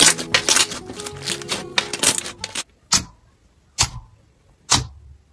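Hands squishing and kneading slime, making dense sticky clicks and crackles over background music. About two and a half seconds in the music stops, and a hand pressing into clear slime makes three sharp pops, about one a second.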